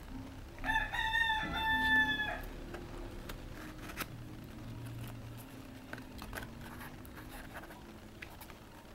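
A rooster crows once, starting under a second in: a rising start, then a steady pitch held for nearly two seconds. Afterwards come faint taps and rustles of a cardboard box being opened by hand.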